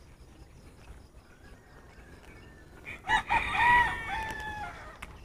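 A rooster crowing once, starting about three seconds in: a few short notes running into a long held note, about two seconds in all.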